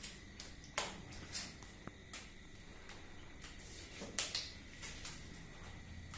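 Scattered, irregular sharp clicks and light knocks, the loudest just under a second in and about four seconds in, over a faint steady high whine.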